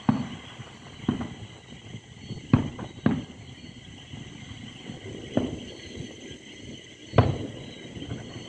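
Distant fireworks going off: about six separate booms, each with a rumbling tail, the loudest about two and a half seconds in and near the end. A steady chorus of night insects runs underneath.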